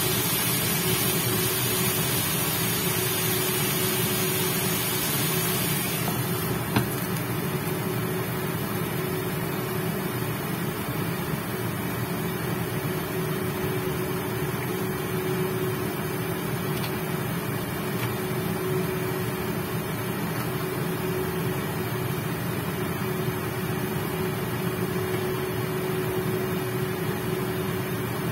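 Chicken pieces sizzling in a frying pan on an induction cooktop, over the cooktop's steady fan hum. About six to seven seconds in, a glass lid is set on the pan with a clack, and the hiss of the sizzle drops away, leaving mostly the hum.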